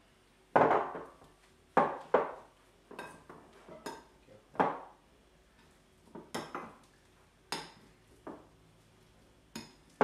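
Metal potato masher mashing kidney beans in a china bowl, clinking and knocking against the bowl about eleven times at irregular intervals of roughly a second.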